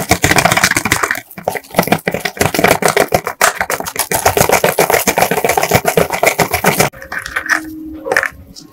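Grit and small metal pistol parts rattling in a plastic sieve basket shaken hard over a plastic tub, a dense fast rattle as the grit sifts through. The shaking stops about seven seconds in, leaving a few light clicks as the parts are handled.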